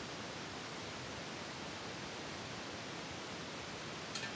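Steady, even hiss with nothing distinct in it, and a short sharp double click near the end.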